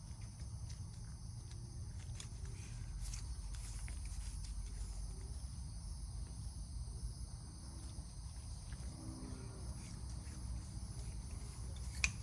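Quiet background: a steady low hum with a faint, steady high-pitched chirr, and a few light clicks of parts being handled.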